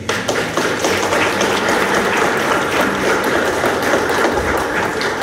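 Audience applauding: many people clapping at once, starting suddenly and holding steady.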